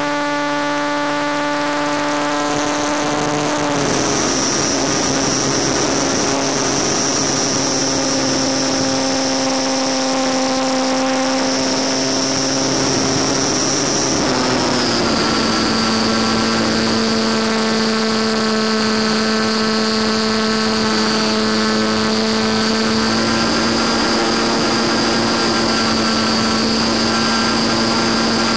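Electric motor and propeller of a small FPV RC airplane, heard from on board with air rushing past: a steady, high whine under power on the climb-out. Its pitch steps down about 4 seconds in and again about 15 seconds in as the throttle is eased back.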